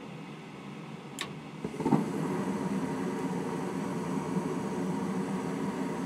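Gas furnace with its inducer motor humming steadily. A sharp click comes about a second in, then the burners light with a soft thump just before two seconds. The burners keep burning with a steady rush of flame over the motor hum.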